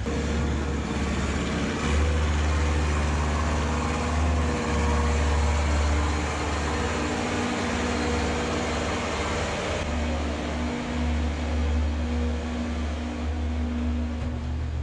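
Hay bale chopper running steadily, blowing chopped bedding across free stalls: a deep, constant machine hum under a rushing hiss of the blown material.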